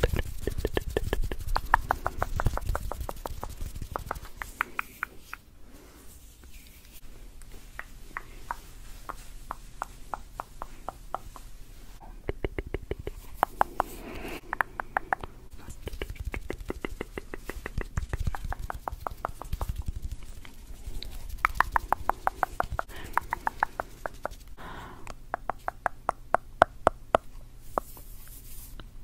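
Tongue clicking and mouth sounds close to the microphone, in quick runs of sharp clicks, several a second, broken by short pauses.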